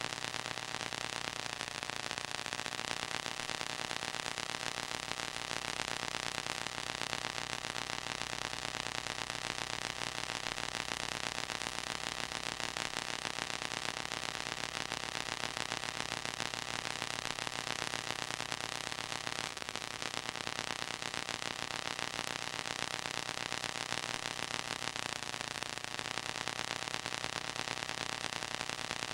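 Steady hiss with a low electrical hum underneath, unchanging throughout: the background noise of a home-movie transfer with no recorded sound.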